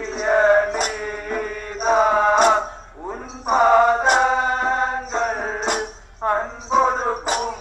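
Male voices singing a chant-like devotional song, with a sharp, bright percussion strike about every one and a half seconds keeping time.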